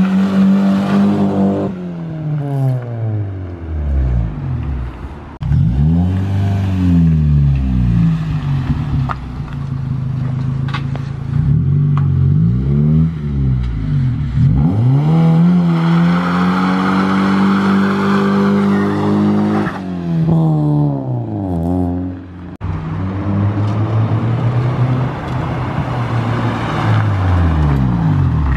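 Honda Civic EJ9 running through its freshly fitted custom exhaust as it drives past, revving up and easing off several times, with one long high rev held in the middle before the note falls away.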